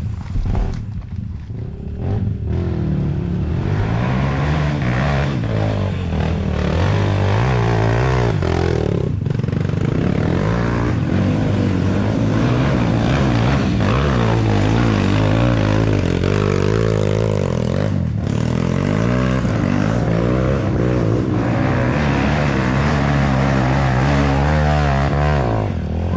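Off-road trail motorcycle engine revving hard and unevenly, its pitch rising and falling over and over, as the bike works through a wet, slippery trail section.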